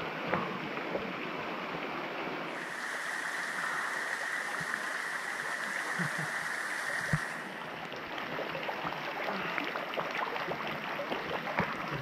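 Water falling from an overhanging rock face into a pool, a steady rush and patter with small splashes close by. A thin, steady high tone sounds in the middle for about five seconds.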